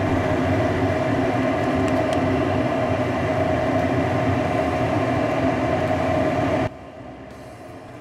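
Armstrong Ultra 90 gas furnace running with its newly replaced draft inducer fan motor and the burners lit: a steady whir with a low hum and a held tone, working normally after the repair. Near the end the sound drops abruptly to a faint hum.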